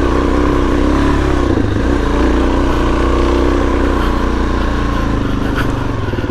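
Suzuki DRZ400S's single-cylinder four-stroke engine pulling hard under open throttle on a slick climb. Its note shifts twice, about two seconds in and again near the end.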